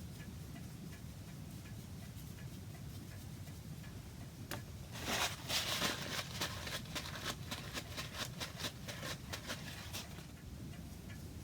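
A clock ticking steadily and fast in the background. About four and a half seconds in, a louder run of rapid scratchy clicks and rustle lasts about five seconds, from handling or rubbing at the bench.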